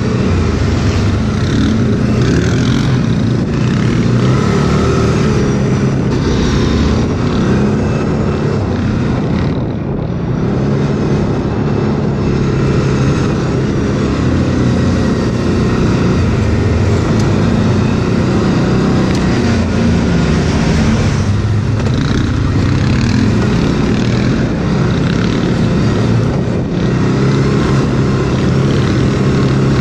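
Quad bike (ATV) engine running hard under throttle while riding off-road, its pitch rising and falling as the rider opens and closes the throttle, with brief drops in level about ten and twenty-one seconds in.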